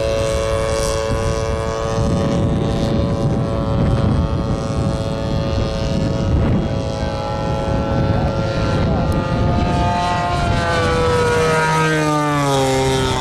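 Engine and propeller of a giant-scale radio-controlled Fokker D.VII biplane model, droning steadily in flight. The pitch falls over the last few seconds.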